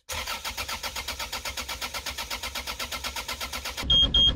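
Marine diesel engine being cranked over on its starter motor in rapid, even pulses, with a compression gauge fitted to a cylinder to measure its compression. Near the end the engine sound gets louder and the engine panel's alarm starts beeping rapidly at a high pitch.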